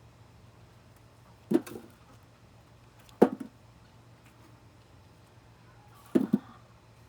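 Three sharp thuds from digging potatoes out of raised-bed soil, about a second and a half in, a little after three seconds, and a quick double one about six seconds in.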